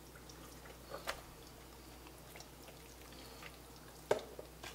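A hand rubbing seasoning into the skin of a raw whole chicken: faint, wet squishing, with a few sharper slaps, the loudest just after four seconds in and another about a second in.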